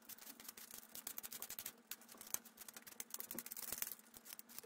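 A hand vegetable peeler scraping over a raw potato: a quick, faint run of short scrapes and clicks as the peel is stripped off stroke after stroke.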